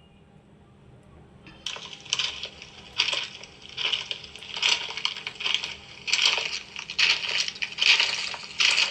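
Pieces of gym chalk being crushed: a run of dry, gritty crunches, one or two a second, starting about a second and a half in.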